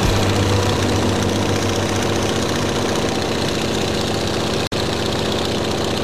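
Airplane engine running steadily, heard from on board. The sound drops out for an instant a little before five seconds in.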